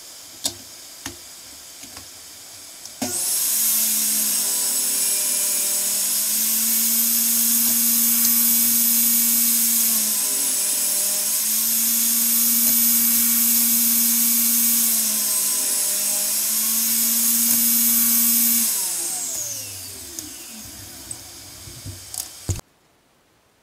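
A benchtop table saw's motor switches on, runs with a steady high whine, and sags in pitch briefly twice as boards are fed through it. About 18 seconds in it is switched off and winds down with a falling hum.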